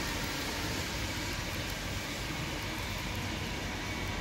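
HO scale model coal train running past: a steady rolling noise from the hopper cars' wheels on the track.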